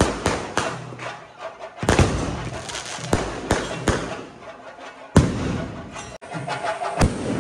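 Festival fireworks going off: an irregular series of loud bangs from bursting aerial shells, with crackling in between. The loudest bang comes a little past the middle.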